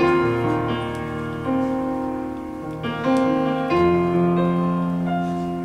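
Slow solo piano chords, each held and fading before the next, as the introduction to a song played back over Manger S1 loudspeakers.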